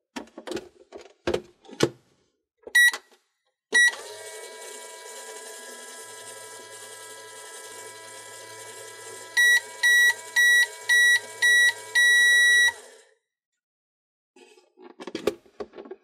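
Toy microwave: light plastic clicks as the door is shut, two short button beeps, then its electronic running hum with the turntable turning. Near the end comes a run of about six beeps, roughly two a second, with the last one held longer, signalling the cycle is done, and a few clicks as the door is opened.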